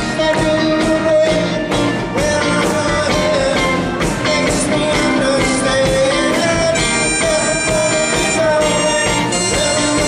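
Live rock band playing a song, with drums keeping a steady beat under a sustained, wavering melody line.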